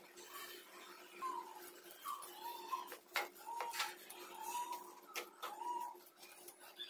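Metal spoon scraping and knocking against a nonstick pan, stirring sugar into grated carrots for carrot halwa, with a few sharp clicks from about three seconds in. Short chirping notes and a faint steady hum run underneath.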